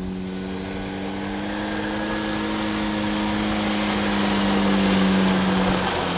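Snobear tracked ice vehicle's engine running steadily as it drives up over the ice, getting louder as it approaches, then easing off and dropping slightly in pitch near the end as it slows.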